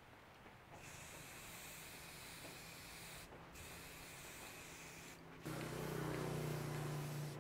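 Aerosol spray can hissing in three spurts, with short breaks between them, as it coats the blade of the machete. A louder low hum joins the hiss for the last two seconds.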